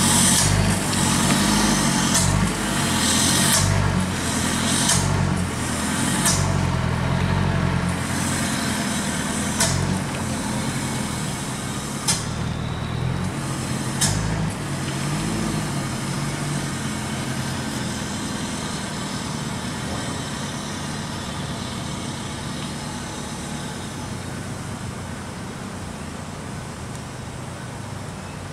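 A motor vehicle's engine running steadily, with several short hissing bursts in the first half. The sound slowly grows quieter.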